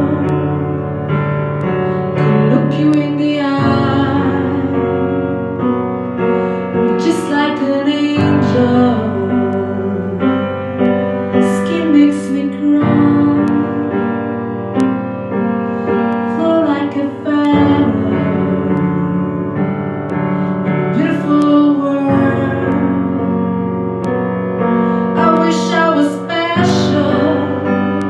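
A woman singing a slow song accompanied by piano, the piano holding chords that change every four or five seconds under the voice.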